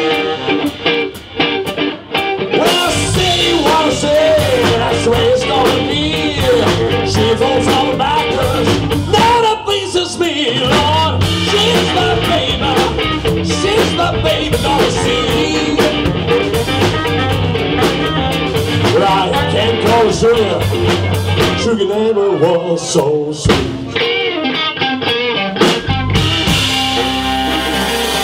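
Live blues band playing: electric guitar and drum kit with a man singing into a microphone, and a saxophone in the band.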